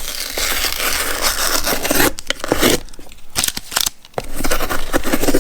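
Sticker seal being torn and peeled off a cardboard tool box, with packaging rustling and scraping in irregular stretches.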